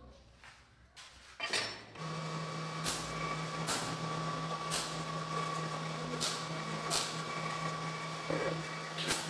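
MIG welder tack-welding a square steel tube frame. From about two seconds in there is a steady hum with a crackling haze, broken by sharp cracks every second or so.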